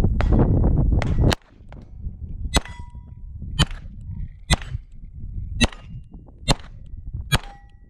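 Beretta 92 9 mm pistol firing a string of about nine shots at steel plates, mostly about a second apart. Several shots are followed by the brief clang-and-ring of a hit steel plate.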